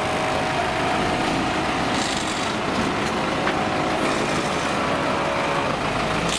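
An engine running steadily: a constant hum over a rushing hiss, with no change in speed.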